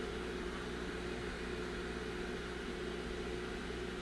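Steady machine hum with an even hiss underneath; nothing in it starts, stops or changes.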